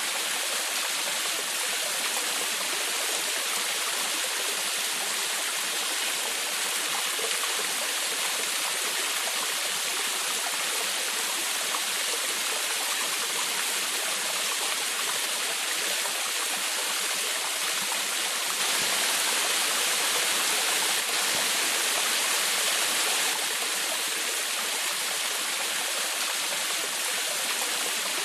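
Small forest waterfall splashing and babbling steadily, a constant rush of falling water that swells slightly about two-thirds of the way through.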